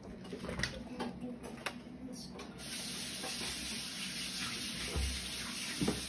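Water rushing into a Bosch front-loading washing machine as it fills, a steady hiss that starts about two and a half seconds in, after a few light knocks.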